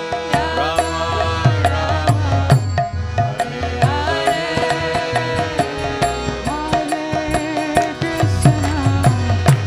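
Live kirtan music: a harmonium holding chords, a mridanga drum beating a steady rhythm, and a trumpet playing the melody, with a woman singing.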